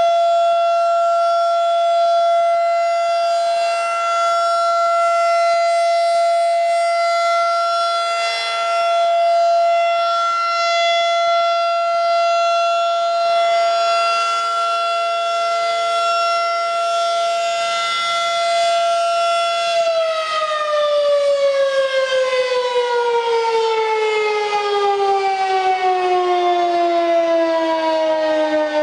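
Federal Signal 2001-SRN rotating tornado siren sounding a steady high tone during a test. About 20 seconds in, the tone begins winding down, its pitch falling steadily as the rotor slows.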